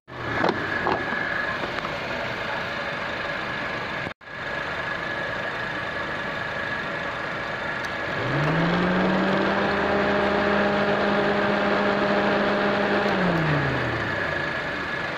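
Electric radiator and condenser cooling fans of a Honda Civic 1.8 running under the hood with the engine on, a steady whir. About eight seconds in, a whirring tone rises, holds level for about five seconds, then falls away. The fans are running again now that the failed fan-control relay has been replaced, the cure for this car's overheating.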